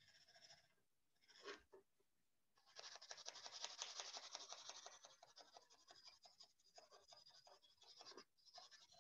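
Pencil shading on sketchbook paper: quiet, rapid back-and-forth scratching strokes that start about three seconds in and keep going steadily, after a short knock a second and a half in.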